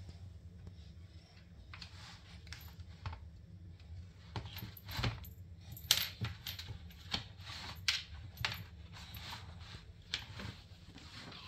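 Light, irregular clicks, taps and scrapes of a plastic laundry basket being knocked and pushed by a cat pawing at it through its holes, thickest from about four to nine seconds in, over a low steady hum.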